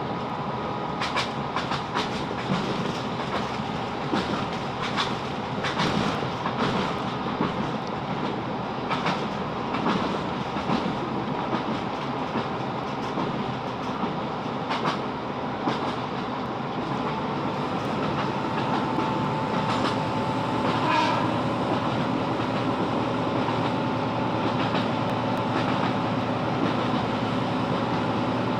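A Class 165 diesel multiple unit running at speed, heard from inside the carriage: a steady rumble of wheels on rail with sharp clicks over rail joints, most frequent in the first half. Past halfway the rumble grows steadier and slightly louder, with a faint high whine.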